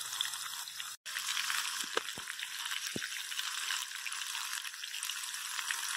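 Masala-battered fish fillet pieces deep-frying in hot oil over a medium flame: a steady sizzle full of fine crackling, with a few louder pops. The sound breaks off for an instant about a second in.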